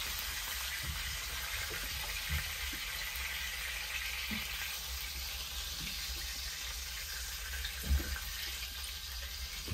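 Burger patties sizzling in a frying pan: a steady hiss over a low rumble, with a light knock about eight seconds in.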